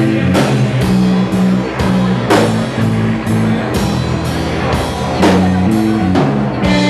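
Rock band playing live: held, shifting bass and guitar notes under drum and cymbal hits.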